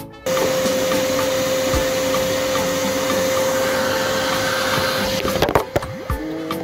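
Electric angle grinder working the rusted bare sheet metal of a car body, a steady hiss with a steady whine, cut off about five seconds in, then falling in pitch as it spins down.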